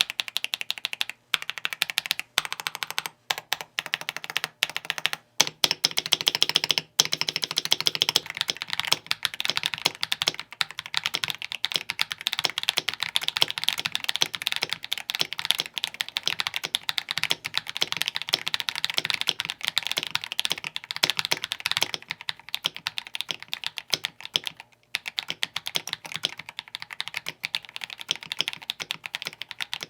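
Mechanical keyboard fitted with stock, unlubed-from-the-box Akko Matcha Green linear switches being typed on: a dense run of keystroke clacks. The presses come with short pauses at first, then turn into fast, near-continuous typing about eight seconds in.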